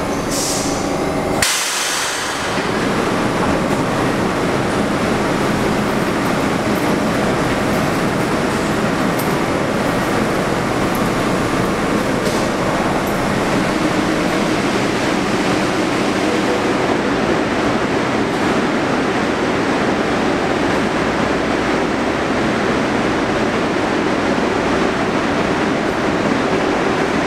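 Subway train noise: a steady, loud rumble with a faint hum running under it. It changes abruptly about a second and a half in, then continues evenly.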